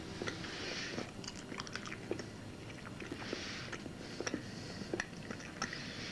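Close-up chewing of a hot pepper: irregular wet clicks and crunches, with a few short hisses.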